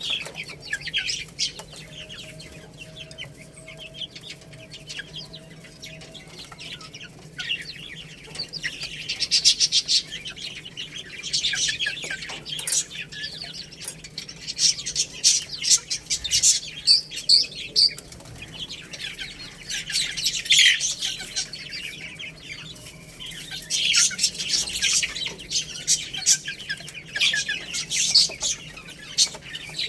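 Baby chicks cheeping: many quick, high-pitched peeps coming in busy bursts every few seconds.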